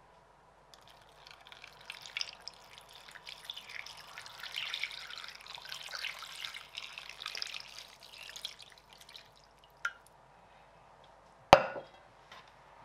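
Water poured from a glass measuring jug into a pot of beef ribs and vegetables, splashing and trickling for about eight seconds. Then a small click, and near the end a single sharp knock.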